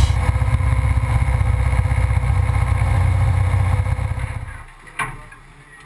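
Off-road race car's VW engine running steadily, then fading away about four seconds in, followed by a single short knock.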